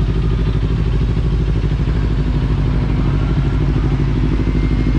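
Kawasaki Ninja 400's parallel-twin engine idling steadily, fresh from its oil and filter change.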